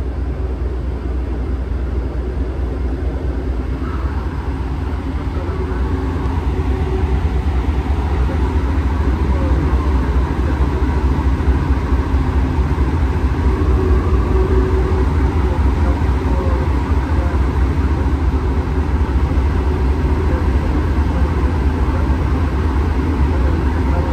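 Cabin noise inside an Alstom NS-93 rubber-tyred metro train running between stations. A steady low rumble with faint motor tones grows louder over the first ten seconds or so, then holds.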